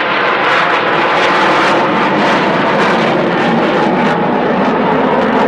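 Jet noise from a formation of Blue Angels F/A-18 Hornets flying overhead: a loud, steady, wide rushing sound with no break.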